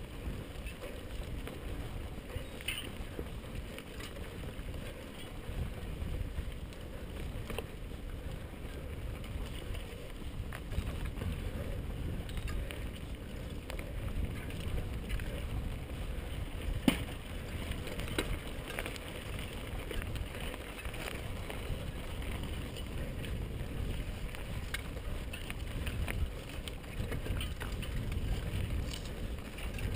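Mountain bike ridden over a dirt-and-gravel singletrack: tyres rolling and the bike rattling over the rough ground, with one sharper knock about halfway through.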